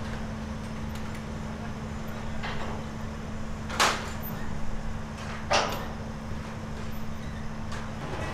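Steady low engine hum with a few sharp metal knocks, the loudest about four seconds in and another a second and a half later, as funfair ride equipment is being assembled.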